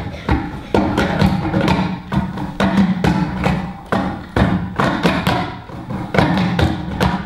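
Hands slapping and tapping on a wooden tabletop as percussion, a run of sharp strikes in an uneven rhythm, with music sounding underneath.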